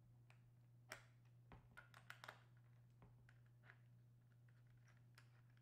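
Very faint clicks and taps of banana plugs and speaker wire being handled and pushed into the binding-post terminal cup on the back of a wooden speaker cabinet, a cluster of them about a second in, over a low steady hum.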